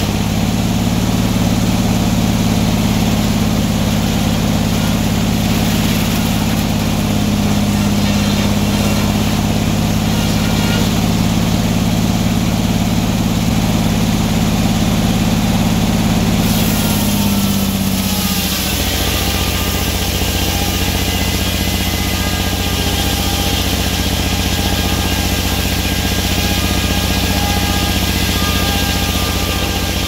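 Circular sawmill running, its big blade sawing through a log as the carriage feeds it, over the steady drone of the mill's drive. A little over halfway through, the drone shifts and a brighter hiss comes in.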